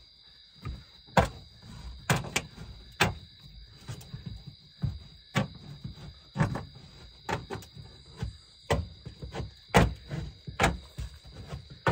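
Hand-tool strikes cutting a round hole through thin metal wall cladding: about a dozen sharp metallic clacks and thunks at an irregular pace, roughly one a second.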